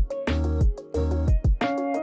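Lofi background music: a steady beat with deep bass thumps and sharp drum hits under sustained keyboard notes.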